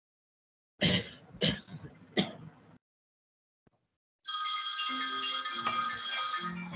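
Three quick coughs, then about four seconds in a phone ringtone starts: a steady chiming melody that runs on past the end.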